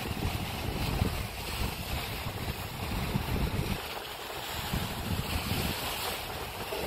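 Wind buffeting the microphone over the steady wash of choppy sea breaking on the rocks below; the gusts ease briefly a little past halfway.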